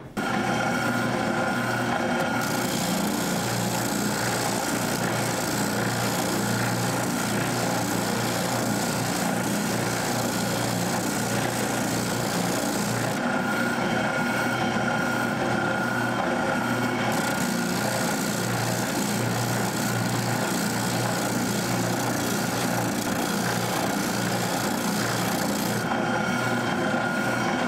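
Spindle sander running steadily, its motor humming, while the wooden handle of a meat cleaver is pressed against the sanding drum to shave it down to a slimmer profile. The rasp of wood on the drum eases off briefly a few times as the handle is lifted and worked again.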